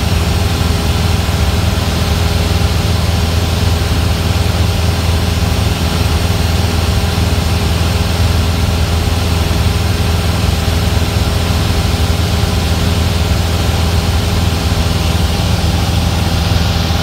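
Single-engine Cessna's piston engine and propeller running steadily in cruise flight, heard inside the cockpit as a constant low drone over a steady hiss of air.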